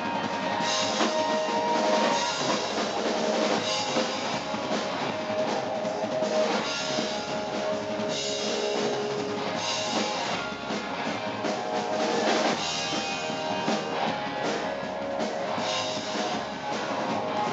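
Live rock and roll band playing an instrumental passage: drum kit, hollow-body electric guitar and double bass.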